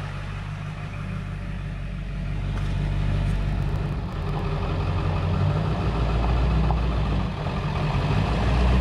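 Ford F-250 Super Duty pickup's engine running with a steady low rumble, growing louder a few seconds in.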